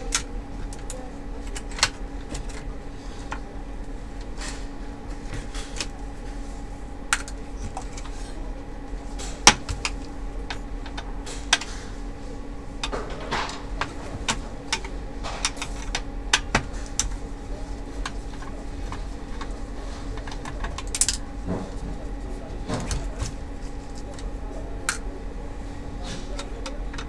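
Scattered small clicks and taps of plastic and metal parts being handled inside an opened LCD projector as it is taken apart, over a steady hum.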